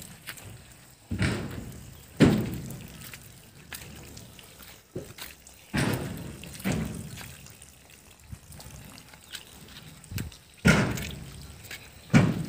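Wet concrete tipped into formwork in loads: about five or six heavy, wet thuds at uneven intervals, each trailing off in a short slosh.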